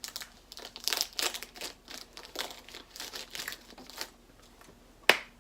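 Snack wrapper crinkling and rustling as it is handled, in irregular crackles that die down after about four seconds, followed by a single sharp click near the end.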